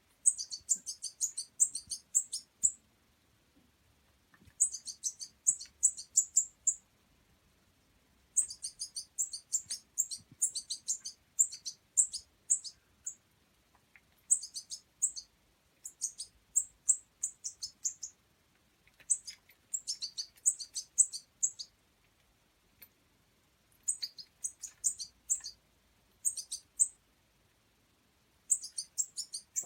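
European goldfinch fledgling calling: bouts of rapid, very high chirps, each lasting two to three seconds, repeated after short pauses.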